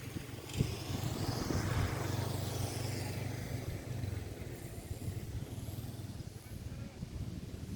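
Strong wind blowing over the microphone with a low rumble, swelling into a gust about a second in and easing after about four seconds.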